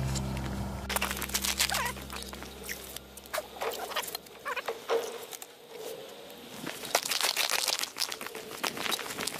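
Irregular crunching and scraping on snow-covered lake ice beside a freezing ice-fishing hole, with background music fading out over the first few seconds.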